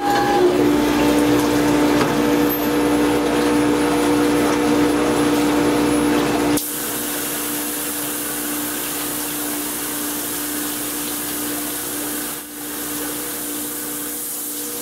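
Induction hardening machine running with a steady hum of several held tones. About six and a half seconds in, the sound changes abruptly to a steady hiss of quench water spraying over the red-hot spindle shaft as it is heated and quenched, with the hum carrying on more faintly.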